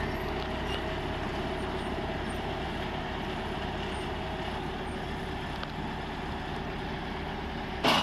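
Small tractor engine running steadily, driving a tractor-mounted Path Breaker S4 four-blade rotary mower as it cuts tall grass: a continuous low drone. A brief loud knock sounds near the end.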